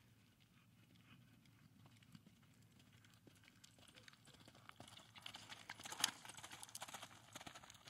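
Hoofbeats of a two-year-old quarter horse on soft arena dirt: faint at first, then a quick run of strikes that grows louder as the horse passes close, loudest about six seconds in.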